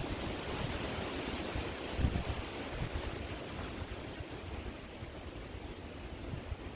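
Steady rushing noise of wind and flowing river water, with low gusts of wind buffeting the microphone at the start and again about two seconds in.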